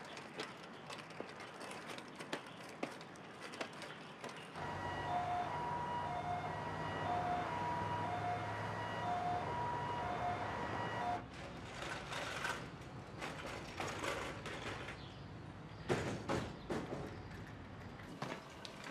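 Ambulance siren sounding a two-tone hi-lo wail over a low engine rumble, starting about four and a half seconds in and cutting off after about eleven seconds. Quieter rattles and knocks follow.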